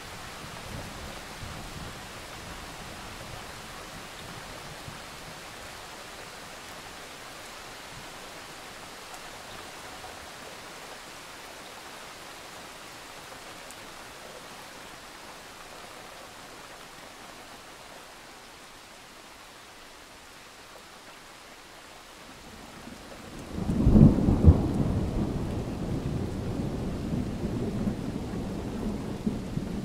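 Steady rain, then about three-quarters of the way through a loud, low thunder rumble breaks in suddenly and keeps rolling to the end.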